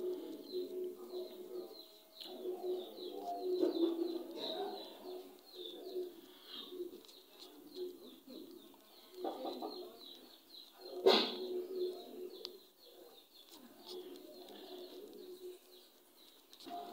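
Birds calling: rapid high chirping throughout, with low cooing notes that come and go. A single sharp knock about eleven seconds in.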